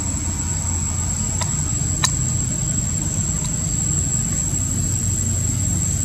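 Steady low rumble of a motor vehicle or traffic, with a constant high-pitched whine over it and a few sharp clicks, the loudest about two seconds in.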